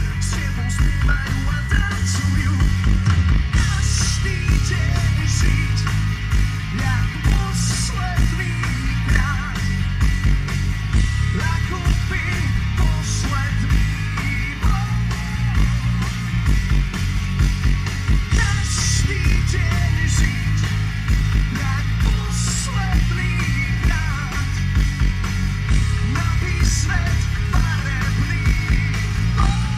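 Live rock band playing loud through a PA: distorted electric guitars, bass guitar and drum kit, with a lead singer's vocals over them.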